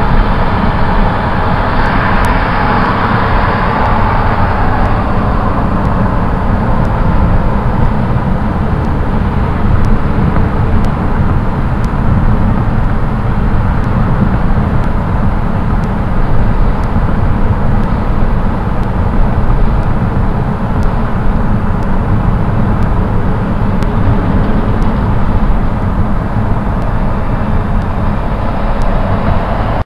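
Loud, steady noise of a moving vehicle: an even rumble and rush, heaviest in the low end, with no distinct engine note.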